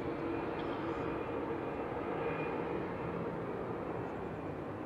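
Jet airliner engines running: a steady rushing noise with a few faint held tones in it.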